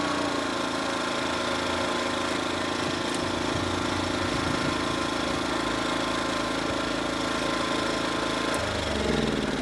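Small inverter generator's engine running steadily with no load after its heat-gun load is switched off. Near the end its note changes suddenly and the engine speed begins to shift.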